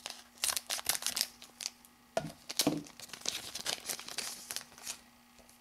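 Foil wrapper of a trading-card booster pack crinkling and crackling as it is handled and torn open, in a string of quick crackles that stop shortly before the end.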